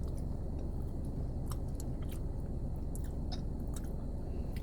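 Close-up chewing of chicken alfredo pasta, with small wet mouth clicks scattered through, over a steady low hum.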